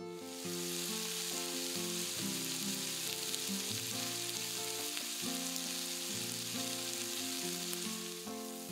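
Chicken-thigh and leek yakitori skewers sizzling in a little oil in a nonstick frying pan over medium heat. The steady sizzle starts suddenly about half a second in, with light guitar music underneath.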